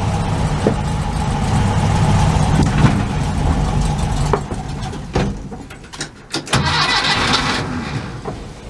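Air-cooled 1500cc VW Beetle flat-four engine running, then faltering about five seconds in: the running sound drops out amid a few pops, and a short hiss follows about seven seconds in. This is typical of an engine stalling.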